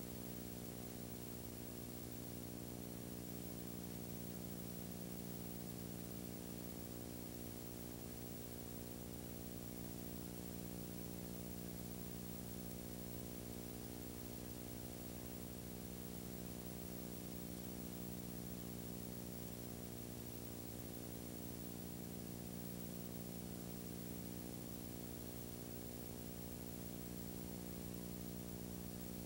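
Steady electrical hum with hiss, unchanging throughout and with no other sound: the noise floor of a silent home-movie transfer.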